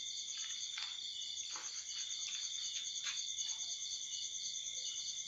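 Steady chorus of night insects, a high, fast-pulsing chirring. A few faint short scratchy sounds come in the first three seconds.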